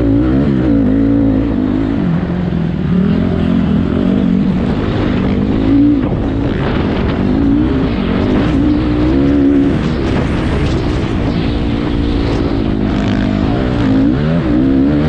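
Racing engine running hard under race conditions, its pitch rising and falling repeatedly as it revs up and backs off.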